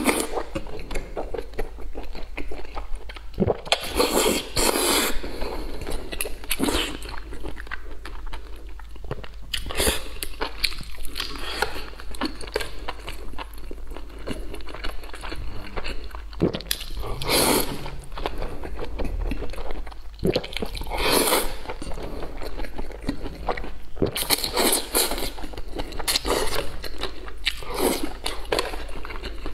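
Close-miked chewing and slurping of soft, saucy long green beans, with wet mouth sounds throughout and louder slurps every few seconds as strands are drawn into the mouth.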